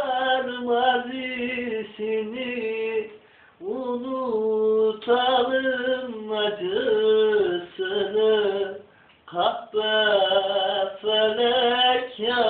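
A man singing unaccompanied in Turkish, holding long drawn-out notes with bending, ornamented turns, and pausing for breath about three seconds in and again about nine seconds in.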